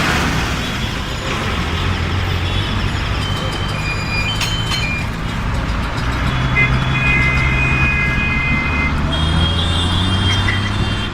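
Busy street traffic with heavy diesel engines running. Vehicle horns sound several times, with one held horn lasting a couple of seconds a little past the middle and another near the end.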